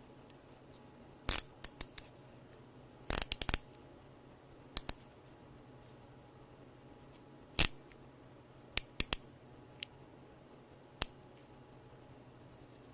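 Small chrome-vanadium 1/4-inch drive sockets clicking and clinking against each other and their metal retaining rail as they are handled: short clusters of sharp clicks with quiet gaps between them.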